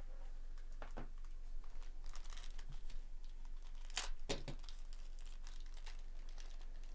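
Foil trading-card pack crinkling and tearing open in gloved hands: irregular sharp crackles, loudest about four seconds in.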